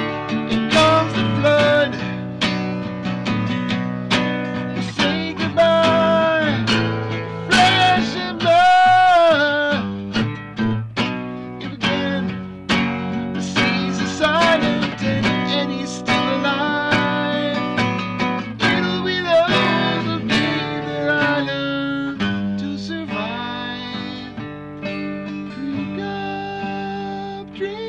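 Acoustic guitar being strummed and picked, with a man's voice singing held, wavering notes over it in places. The playing becomes softer in the last few seconds.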